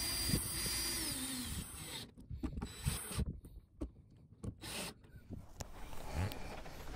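Cordless drill-driver running as it drives screws into the fibreglass hull, then winding down with a falling pitch about two seconds in. Scattered light clicks and knocks follow, from handling screws and tools.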